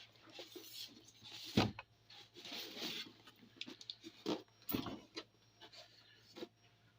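Handling noises of unboxing: quiet rustling and light taps, with a sharper knock about a second and a half in and another near five seconds.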